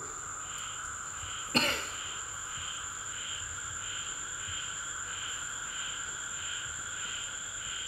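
A single short cough about a second and a half in, over steady insect chirping: a soft pulse about twice a second and a high continuous trill.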